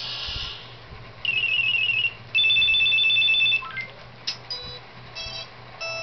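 Mobile phone ringtones played one after another on the phone's speaker: a rapidly warbling trill for about a second, then a loud steady electronic ring for about a second and a half, then a few short chirps, and a simple beeping melody starting near the end.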